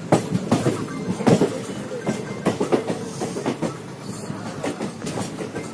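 Passenger train coach wheels running over rail joints as the train rolls into a station: an irregular run of sharp clicks and knocks over a steady rumble.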